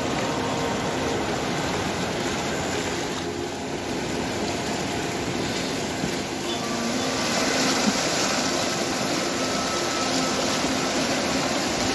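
A swollen, muddy river in flood rushing past close to the bank as a steady noise of fast, turbulent water. It gets brighter and hissier from about seven seconds in.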